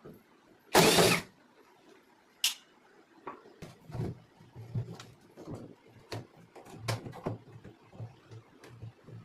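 Hands-on work on a washing machine during a drum change: a loud scraping rush about a second in, a sharp click, then a run of irregular knocks and taps.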